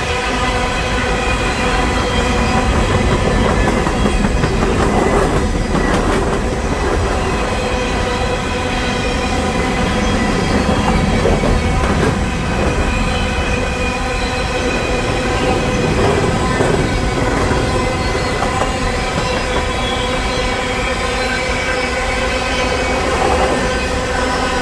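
Freight train of covered hopper cars rolling past with a continuous low rumble from the wheels on the rails and occasional clacks. A steady high-pitched wheel squeal at several pitches runs over it.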